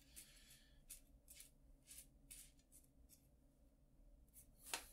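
Faint clicks and rustles of a thin metal chain and small jewellery parts being handled on a wooden table, with one sharper click near the end, over the low steady hum of a mechanical ventilation unit.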